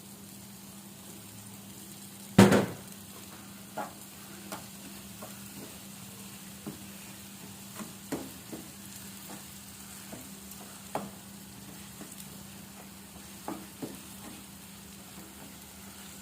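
Mashed potato sizzling in ghee in a pan while a spatula stirs it, with scattered scrapes and taps of the spatula against the pan as sugar is mixed in for potato halwa. A single loud knock comes about two seconds in.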